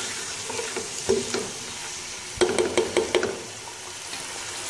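Boneless chicken pieces sizzling in hot oil in a non-stick pan while a spoon stirs them, scraping and knocking against the pan, with a quick run of knocks about two and a half seconds in.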